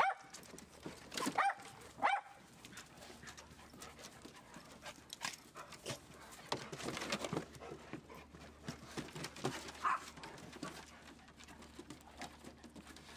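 Dogs giving a few short barks in the first couple of seconds, then softer noises of the dogs moving about.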